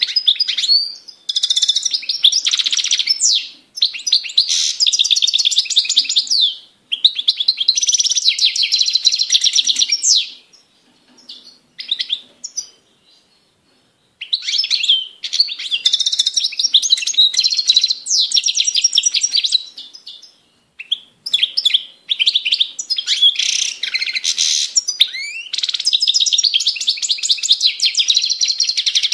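European goldfinch singing: long phrases of rapid twittering, trills and buzzy notes, each a few seconds long with short breaks between them and a longer pause about halfway through.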